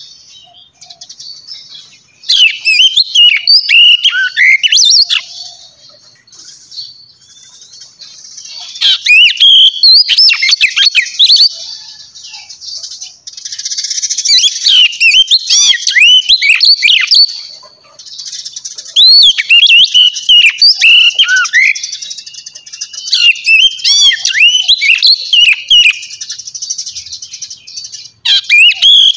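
A songbird singing loudly in bouts of a few seconds each, made of rapid chirps and quick whistled sweeps, about six bouts in all, over a steady high twittering.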